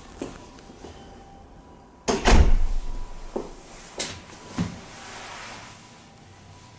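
A door or cupboard door being handled and opened: a loud clunk with rattling about two seconds in, followed by a few sharper clicks and knocks.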